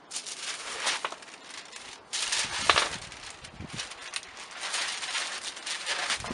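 Sheets of newspaper rustling and crinkling as they are picked up off the ground and bundled together, in a run of uneven bursts, the loudest a little under three seconds in.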